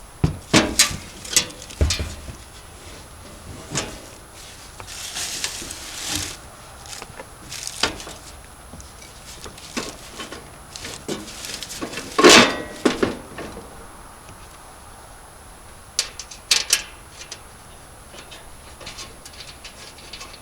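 Scattered metal clanks and knocks of wood chipper parts and hand tools being handled as the chipper is reassembled, with the loudest clank about twelve seconds in and a short rustle around five seconds in. The engine is not running.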